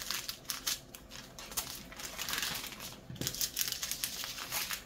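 Small plastic bags of diamond-painting drills being handled and set down: a quick run of crinkling plastic with many small clicks.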